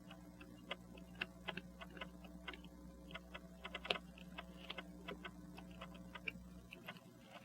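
Small, quick metallic clicks from an open 18-size Rockford pocket watch movement, about four to five a second and uneven, over a steady low hum that stops near the end.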